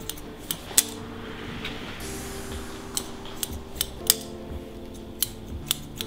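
Hairdressing scissors snipping hair in irregular sharp snips, sometimes several in quick succession, over soft background music. A brief hiss comes about two seconds in.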